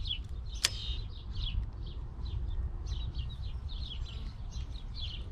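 Small birds chirping continuously: short, high, falling chirps several times a second, over a low steady rumble. A single sharp click about two-thirds of a second in.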